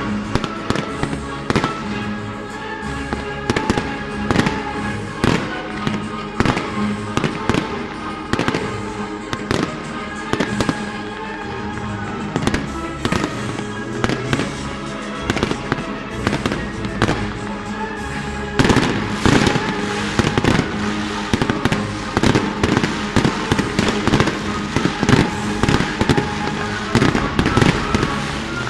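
Fireworks bursting in rapid, irregular bangs over steady music; about two-thirds of the way through the bangs come thicker and louder.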